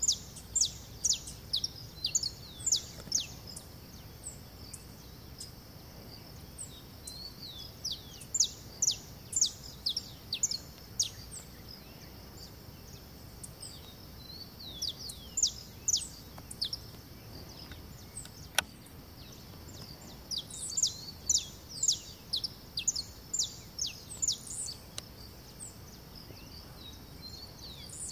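Saffron finch (canário-da-terra) singing: about four phrases of quick, sharp, high notes that slur steeply downward, with pauses of a few seconds between the phrases.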